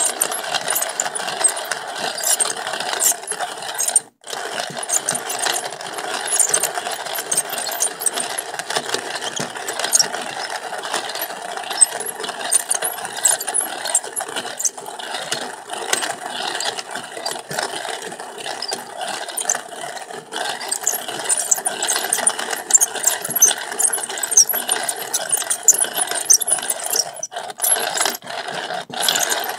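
Hand-cranked coffee grinder with a ceramic burr grinding whole coffee beans: a steady, dense crunching and clicking as the crank turns, broken by a brief pause about four seconds in and a couple of short pauses near the end.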